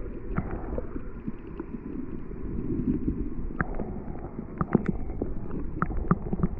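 Flowing creek water heard through an underwater camera's waterproof housing: a muffled low rumble with irregular clicks and knocks scattered through it.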